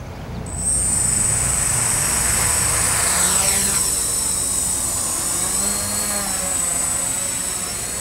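Witespy quadcopter's electric motors and propellers spinning up about half a second in, then a steady high whine and propeller buzz as it lifts off and hovers, the pitch sliding down and wavering as the throttle changes.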